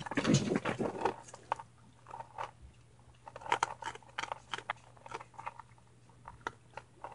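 Young raccoons chewing dry kibble close up, a string of short, sharp crunches and clicks. A louder rough burst comes in the first second.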